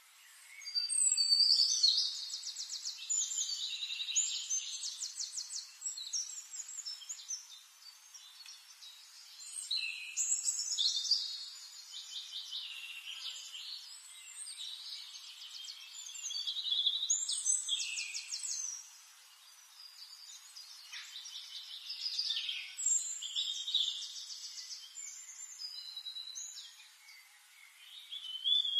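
A songbird singing in long phrases of warbles and fast trills, each a few seconds long, with short pauses between them.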